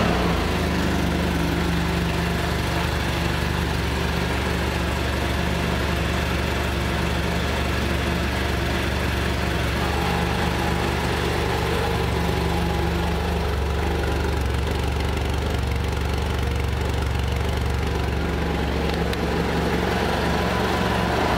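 2017 BMW F800GS Adventure's parallel-twin engine idling steadily just after start-up.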